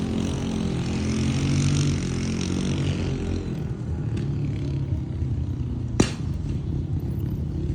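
ATV engine running steadily under way, with one sharp click about six seconds in.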